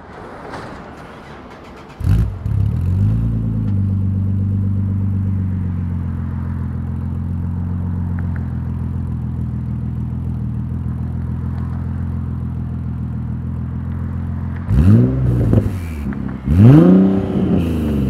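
Twin-turbocharged Nissan 370Z Nismo's 3.7-litre V6 heard through a custom 3-inch turbo-back exhaust: it starts about two seconds in, flares up, then settles into a steady idle. Near the end it is revved in a few quick throttle blips, each rising and falling in pitch.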